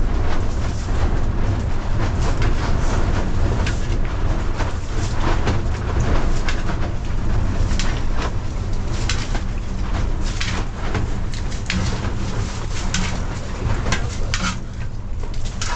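Wind rumbling on the microphone over a steady rush of noise, with many scattered sharp taps throughout.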